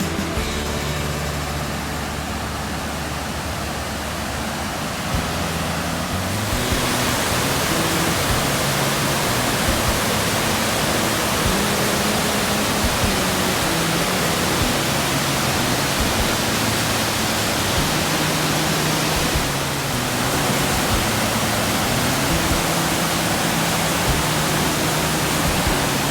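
Waterfall rushing: a steady, loud roar of falling water that grows louder and brighter about six seconds in.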